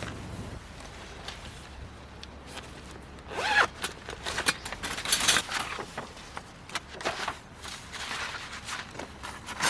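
A zipper being pulled in quick rasping strokes, with a burst of zipping from about a third of the way in to just past the middle, then lighter scattered rasps and clicks.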